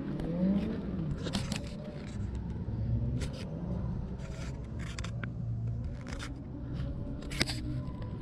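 Low steady rumble with scattered sharp clicks and scrapes, the sound of a handheld camera being moved about close under a car.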